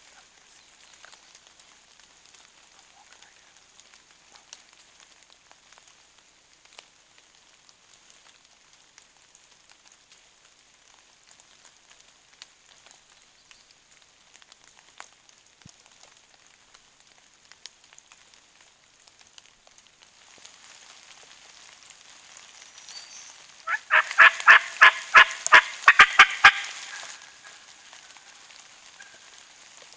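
Light patter of rain, then, about three-quarters of the way through, a wild turkey gobbler gobbles once, loudly: a rapid rattling gobble lasting about three seconds.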